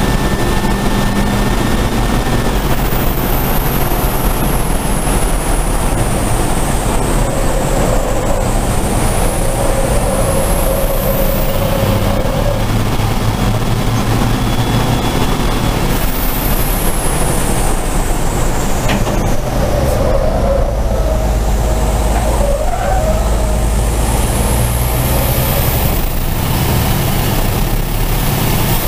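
Racing truck's turbo-diesel engine running hard at speed, heard from inside the cab, with heavy road and wind noise. A thin high whine rises and falls several times over the steady rumble.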